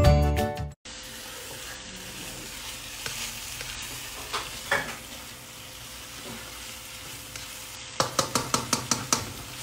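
Food sizzling in a non-stick wok while a plastic spatula stirs and scrapes it. Near the end comes a quick run of spatula strokes against the pan, about six a second.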